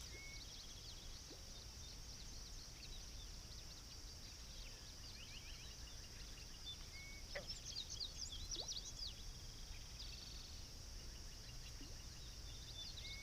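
Faint outdoor ambience: a steady high-pitched insect chorus with birds chirping, and a flurry of chirps about seven to nine seconds in.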